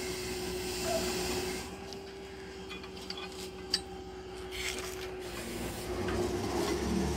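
Pump-hoist truck's engine idling steadily, with a few light metal clicks and one sharp tap about three and a half seconds in. The engine gets louder near the end.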